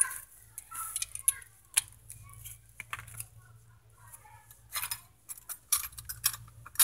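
Steel sockets and tools clinking and rattling in gloved hands as a 15 mm socket is picked out and fitted onto an extension, a run of sharp metallic clicks with the loudest clacks in the second half.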